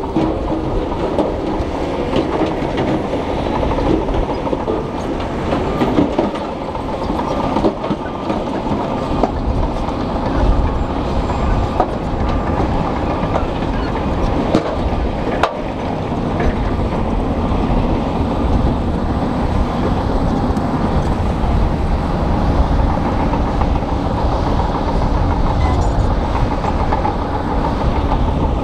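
Shantui crawler bulldozer's diesel engine running hard with a continuous metallic clatter from its steel tracks as the blade pushes rock and earth.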